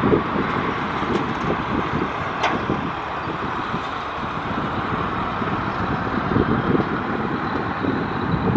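Boeing 737 MAX 8's CFM LEAP-1B turbofan engines at takeoff power, a steady loud jet noise, with wind gusting on the microphone.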